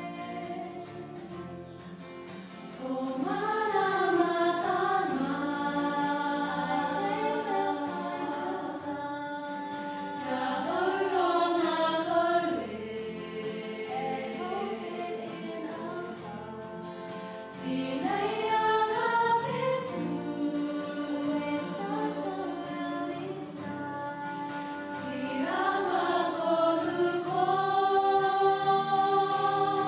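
Girls' choir singing a slow song together in long held notes, the voices swelling in at the start of each of four phrases.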